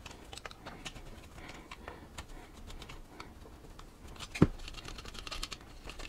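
Small clicks and taps of a screwdriver and fingers working screws out of a plastic odometer housing, with one louder knock about four and a half seconds in.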